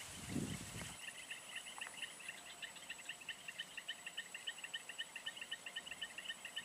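Insects chirping in an even run of about four chirps a second, over a steady thin high insect whine. A brief low rumble comes just after the start.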